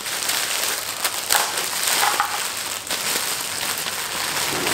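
Clear plastic wrapping crinkling and crackling as it is pulled off a statue by hand, with a few sharper crackles along the way.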